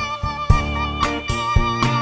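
Background music: an instrumental track with sustained string and keyboard notes over a steady beat.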